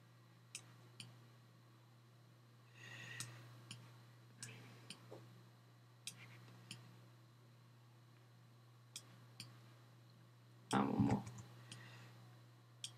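Sparse single computer mouse clicks, a second or several seconds apart, over a steady low electrical hum. About eleven seconds in there is one brief, louder, low sound.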